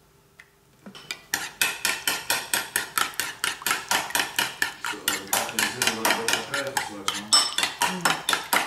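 Metal spoon beating egg and cooking oil in a ceramic bowl, clinking rapidly against the bowl at about six strikes a second, starting about a second in.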